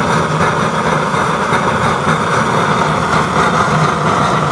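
Air-fed used-oil stove burner with a no-welding coupling-reducer nozzle, its flame and air feed making a loud, steady roar. It is burning strong even though its oil supply is used up.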